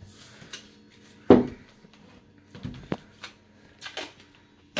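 Cardboard Roman candle tubes knocking as they are handled and set in place around a centre tube. There is one loud knock about a second in, then a few softer knocks and short scrapes.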